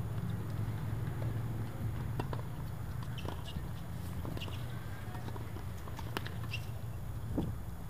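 Scattered sharp knocks of tennis balls bouncing and being struck on a hard court, with footsteps and a few short high shoe squeaks, over a steady low rumble.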